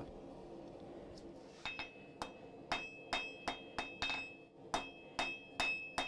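Hand hammer striking a hot steel bar on an anvil to draw a taper: a steady run of blows, about two to three a second, beginning about a second and a half in. Each blow leaves a short metallic ring from the anvil.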